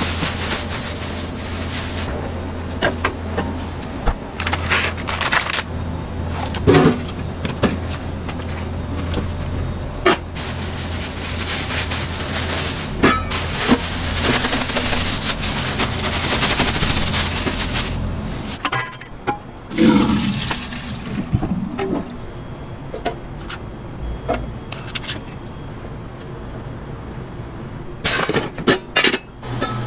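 Food-prep handling sounds: scattered knocks and clicks of stainless steel pans and containers, with a stretch of running, splashing liquid in the middle as grated food is squeezed in a cloth bag over a steel tray, over a steady low hum.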